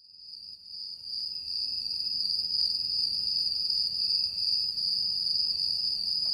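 Crickets chirping in a steady, continuous high-pitched trill, fading in over the first second.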